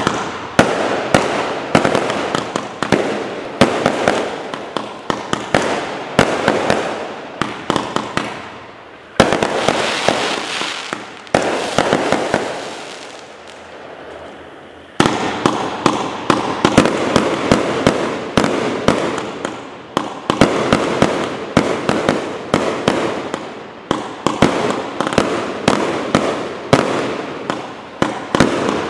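A 135-shot compound fireworks cake firing its shots in rapid succession, sharp reports coming several a second. Between about 9 and 15 seconds in the shots thin out over a steady hiss, then the rapid firing resumes.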